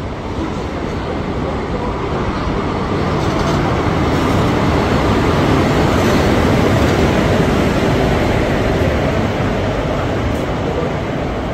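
Passenger train pulling into a station platform, its coaches rolling past with a steady rumble that swells to its loudest about six seconds in and then eases slightly.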